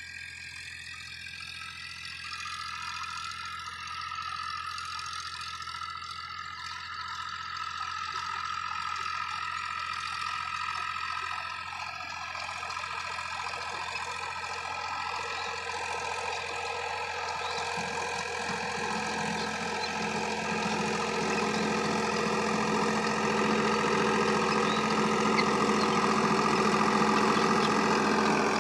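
Powertrac 439 Plus tractor's three-cylinder diesel engine running steadily under load as it drives a rotavator through the field, growing steadily louder as the tractor draws near.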